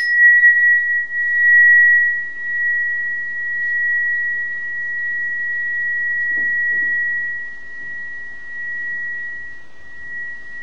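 Sonotest (Cosmic Tune) tuning fork struck once with a mallet, then ringing on as a single steady high tone. Its level swells and dips as the fork is moved past the body, which the demonstrator reads as higher and lower energy at the chakras.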